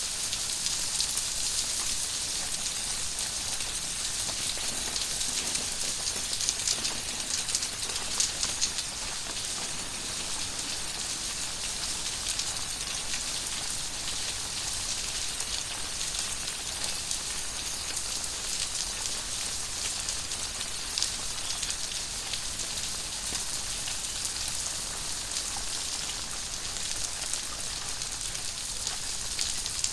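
Very heavy rain falling steadily: a dense hiss of countless drops, with sharper splatters here and there.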